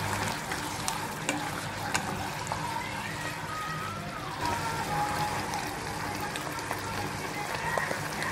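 Sauce bubbling and sizzling in a pot while a wooden spatula stirs it, with scattered light clicks from the spatula against the pan.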